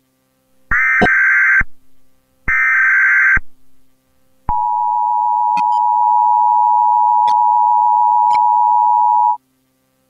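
Emergency Alert System broadcast tones: two short buzzy bursts of SAME header data about a second apart, then the harsh two-tone EAS attention signal, held steady for about five seconds before cutting off.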